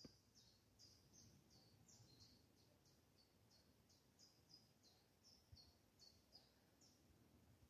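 Near silence with a faint bird calling: a series of short, high chirps, two or three a second.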